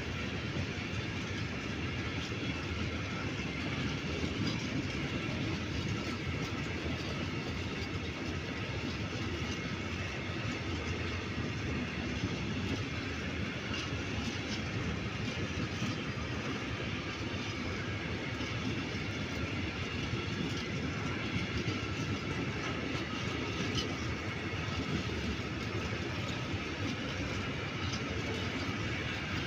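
Long freight train of open-top wagons rolling past: a steady rumble of steel wheels on the rails, with occasional clicks over the rail joints.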